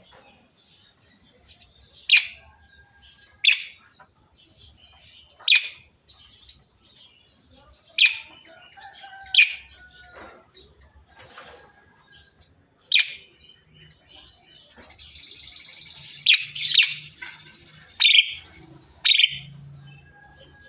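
Javan myna (jalak kebo) calling: a string of short, sharp, piercing notes a second or two apart, broken about two-thirds of the way through by a harsh rasping chatter that lasts a couple of seconds.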